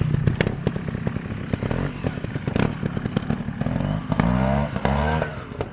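Small trials motorcycle engine running at low revs with short sharp ticks and knocks, the throttle blipped twice in quick rising revs near the end as the bike picks its way over rough ground.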